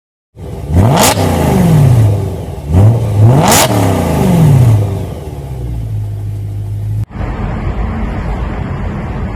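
BMW E92 M3's V8 engine blipped twice, pitch shooting up and falling back each time, then settling to a steady idle. After an abrupt cut about seven seconds in, the engine runs steadily and its pitch begins to rise near the end.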